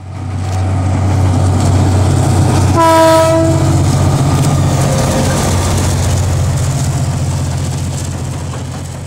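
Diesel locomotive engine running with a steady low drone, and one short horn blast about three seconds in. The sound fades in at the start and fades down near the end.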